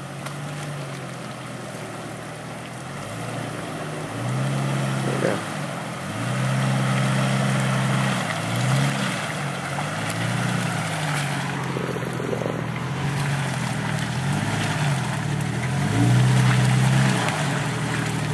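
1998 Jeep Cherokee XJ's engine revving up and falling back again and again as it crawls through deep wet mud, with a steady rush of tyres churning mud and water.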